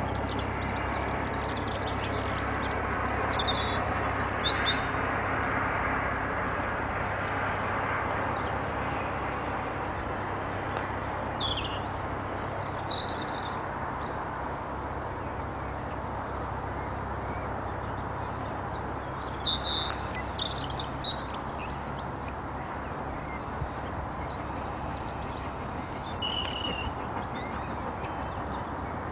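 Small birds chirping in short bursts, several times, over a steady background rush of noise that slowly fades.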